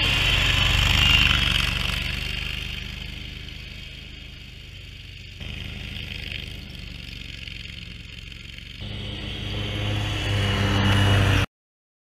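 Hustler X-One zero-turn mower's Kawasaki V-twin engine running while mowing. It is loud at first, fades through the middle and grows louder again, then cuts off suddenly near the end.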